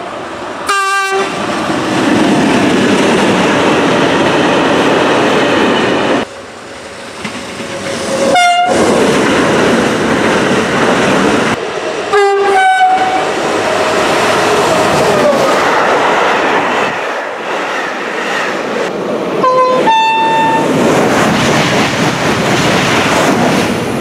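French locomotive horns sounding over the steady rumble and wheel clatter of passing trains. There is one short blast about a second in, another around eight seconds, and two-note calls around twelve and twenty seconds.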